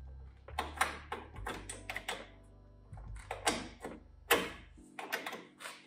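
Ball-type hydraulic quick couplers clicking and clunking as a male coupler tip is pushed into and pulled out of the remote ports, checking that they connect and release freely. It makes a string of sharp metal clicks, the loudest a little past four seconds in. A low steady hum underneath stops about five seconds in.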